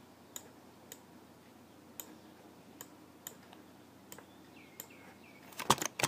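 Clicks of a computer mouse and keyboard during desktop 3D-modelling work: scattered single sharp clicks about every half second to second, then a quick cluster of louder clicks near the end.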